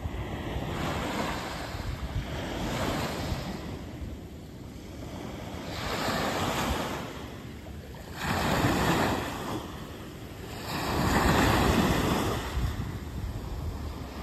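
Small waves breaking and washing up a sandy beach, the surf swelling and ebbing about every two to three seconds, with the two loudest surges in the second half.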